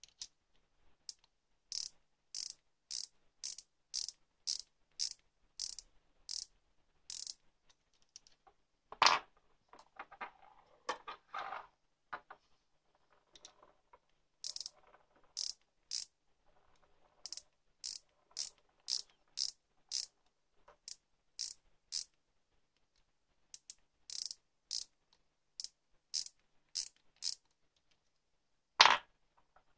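Ratchet stop on the thimble of a Garwin 0–25 mm digital micrometer clicking in runs of short, sharp clicks, about three a second. The ratchet is slipping at measuring force with the spindle closed on a small turned part. Two louder knocks come about nine seconds in and near the end, with some handling rustle between.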